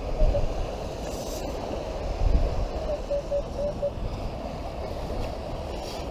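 Wind rumbling on the microphone, with a metal detector sounding a few short, low beeps as its coil sweeps the sand: two right at the start and four in quick succession about three seconds in, signalling a target.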